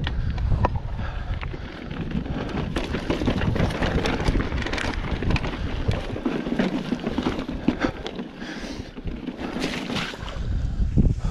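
Mountain bike rolling down a rocky trail, clattering with many sharp knocks as the tyres run over stones. Wind buffets the microphone as a low rumble that eases for a few seconds past the middle of the run, then comes back.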